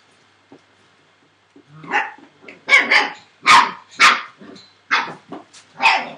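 Entlebucher Mountain Dog puppy barking, a run of about half a dozen short, loud barks starting about two seconds in.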